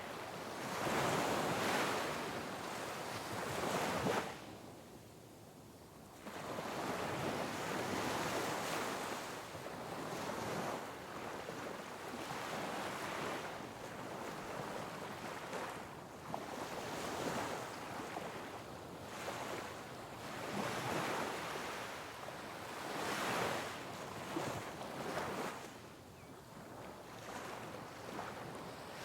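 Sea waves crashing on rocks: a rush of surf that swells and falls every few seconds, with a short lull about five seconds in.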